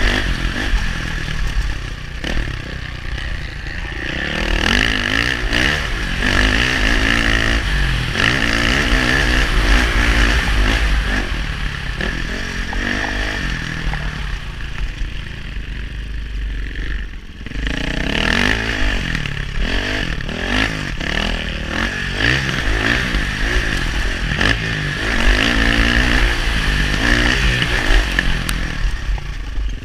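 KTM single-cylinder four-stroke motocross bike engine being ridden hard, revving up and falling back again and again as the rider works the throttle and gears. The throttle shuts briefly a little past halfway before the engine pulls again, with wind noise and chassis clatter under it.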